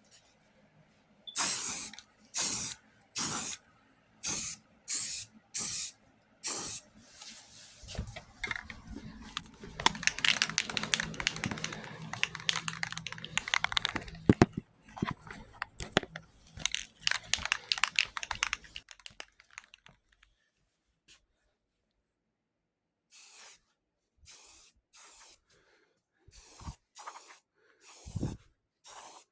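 Aerosol can of sandable primer spraying in short bursts of hiss, with a longer run of near-continuous spraying in the middle, then a few quieter short bursts near the end.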